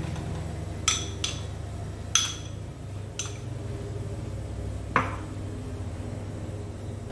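Kitchen crockery and cookware being handled: four sharp ringing clinks in the first three seconds or so and a heavier knock about five seconds in, over a steady low hum.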